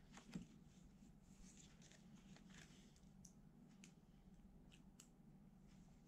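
Near silence with faint desk-handling sounds: paper pages of a spiral-bound planner rustling and turning, and a pen taken from a plastic pen cup. A soft knock comes about a third of a second in, then a few light clicks.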